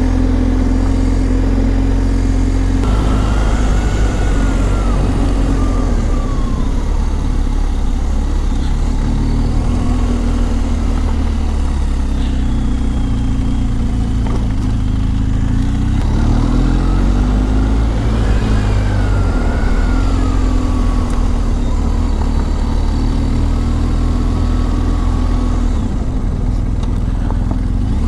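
BMW GS boxer-twin motorcycle engine running while riding, its pitch rising and falling several times as the throttle and speed change, over a heavy low rumble.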